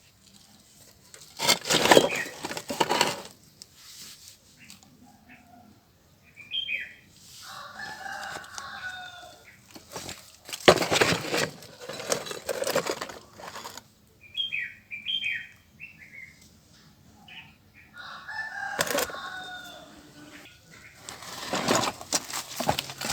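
A rooster crowing twice, with short high chirps, between three louder noisy bursts of a second or two each.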